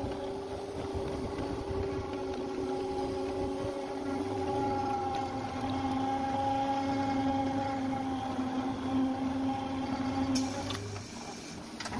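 Electric drive of a tyre-retreading builder machine running with a steady whine as it turns a truck tyre casing under its pressing rollers. The pitch drops about four seconds in, and near the end there is a click and the whine stops.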